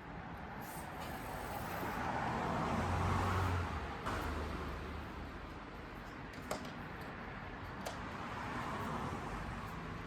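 Road vehicle noise: a car passing by, swelling to a peak about three seconds in and fading, then rising again near the end, with two light clicks in between.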